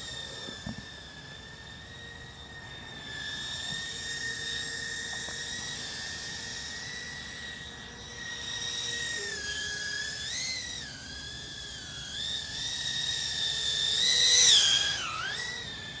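FPV quadcopter's motors and four-bladed propellers whining as the drone cruises, the pitch wavering with the throttle about ten seconds in and swelling loudest near the end before dipping.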